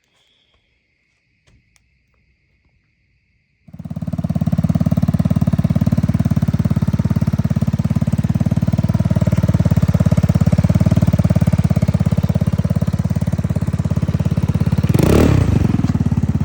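GY6 150cc scooter engine running steadily through an aftermarket carbon-fiber exhaust, coming in about four seconds in after a near-silent gap. A brief rush of noise near the end.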